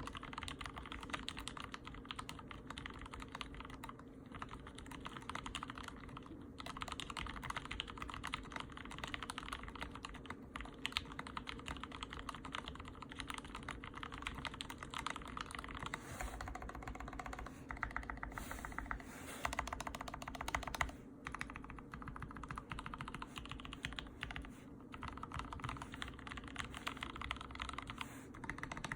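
Continuous fast typing on a custom mechanical keyboard with Gateron Ink linear switches lubed with Krytox 105, mounted in an aluminium plate: a dense run of key clicks with a few short pauses.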